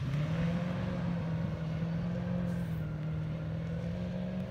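Comp safari off-road racing car's engine pulling hard at steady revs as it crosses a field. The note steps up just after the start, holds, and climbs a little near the end.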